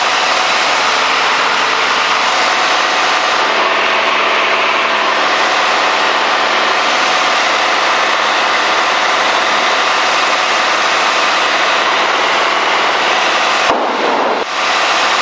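Steady cabin drone of a Cessna 210D in flight: its six-cylinder Continental engine and propeller running at cruise power with a hiss of airflow. Near the end the sound briefly goes thinner for under a second.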